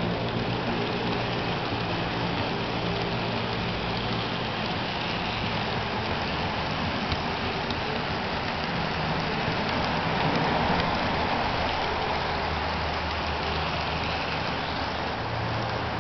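Electrotren Hellasprinter model electric locomotive running at a steady speed along the track with a train of container wagons: a continuous rolling rattle of wheels on the rails with a low motor hum and a few faint ticks.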